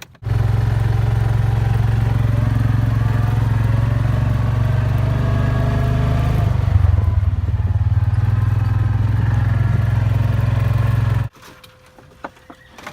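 Vehicle engine running loudly while driving: a steady low drone with gliding tones rising and falling above it. It starts abruptly and cuts off suddenly about eleven seconds in.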